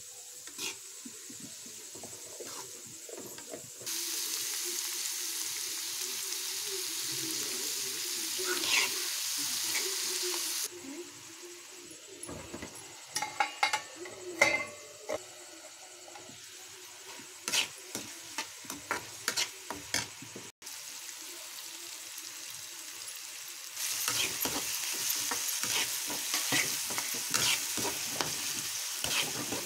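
Chopped onions, green chillies and turmeric frying in oil in an iron kadai: a steady sizzle, with a metal spatula scraping and clinking against the pan. The sizzle drops in the middle while a steel plate covers the pan, with a run of metal clinks there, and comes back loud near the end as the onions are stirred.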